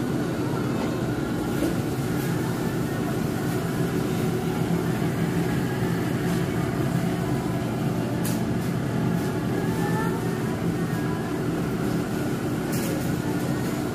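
Steady low rumble and hum of supermarket background noise, with a couple of faint clicks.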